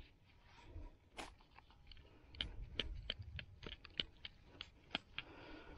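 Gloved hands crumbling a clod of field soil: a run of faint crunches and crackles, sparse at first and coming thick and fast from about two seconds in.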